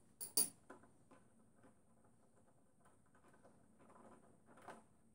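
Light metal clicks and taps from handling a spark plug socket and the old spark plug at a lawn mower engine: a sharp click about half a second in, then faint scattered clicking and rustling.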